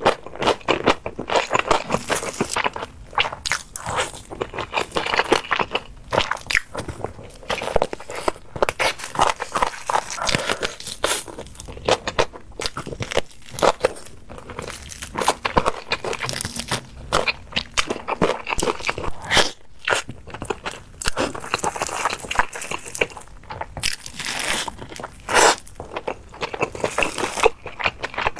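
Close-miked crunchy biting and chewing of crisp food, a fast, irregular run of crackles and crunches throughout.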